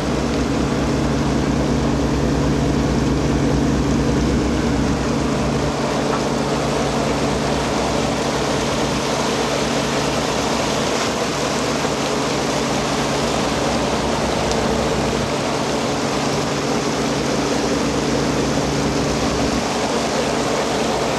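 A fishing vessel's diesel engines running steadily with an even low hum, under a constant rushing hiss.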